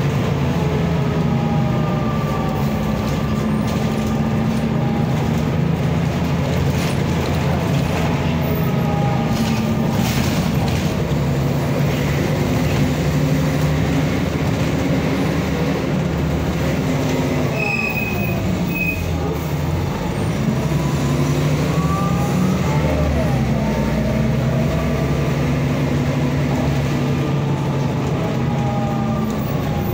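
Cabin sound of a Mercedes-Benz O405N2 city bus under way: its Mercedes-Benz OM447hLA turbo diesel straight-six runs steadily through the ZF 4HP 500 automatic gearbox. A little past the middle the engine note falls and then climbs again. There is a brief high squeal about 18 seconds in.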